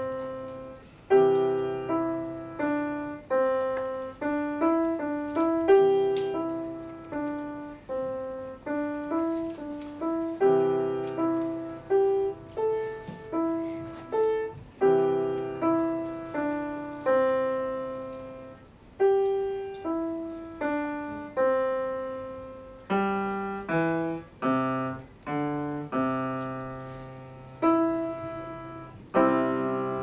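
Solo grand piano playing a piece with a melody over lower chords, each note struck and then fading; the notes come faster and denser in the last several seconds.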